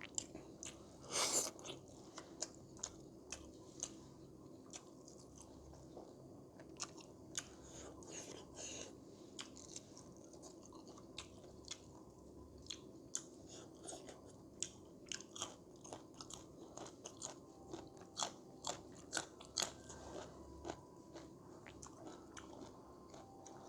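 A person chewing pork curry close to the microphone, with many short sharp mouth clicks and smacks and a louder bite about a second in.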